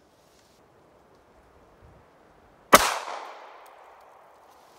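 A single pistol shot from a Ruger LCP MAX firing .380 ACP, a little over halfway in, its report ringing out and dying away over about a second and a half.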